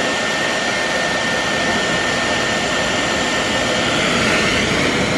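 Handheld hair dryer running steadily at close range: a constant rushing blow of air with a thin, steady high whine from its motor and fan.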